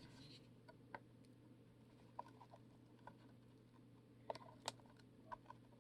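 Near silence with a few faint, scattered clicks and taps of a cardboard box being worked open by hand with a knife, as the mini boxes are pried out of it.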